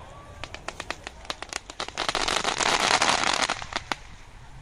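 Fireworks crackling: scattered sharp cracks thicken into a dense crackle about two seconds in, which dies away about a second and a half later, with one last crack near the end.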